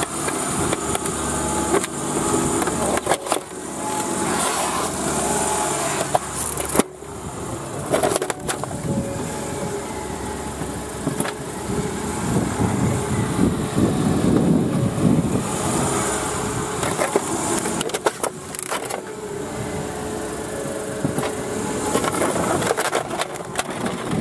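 A Renault car's engine running as the car is driven back and forth over a full-face motorcycle helmet. Sharp cracks and crunches come several times as the helmet shell gives way under the tyre.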